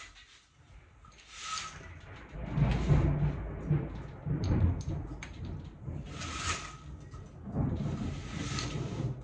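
Thunder rumbling, rolling on for several seconds from about two and a half seconds in and loudest around the third second. Short bursts of hissing noise come and go over it.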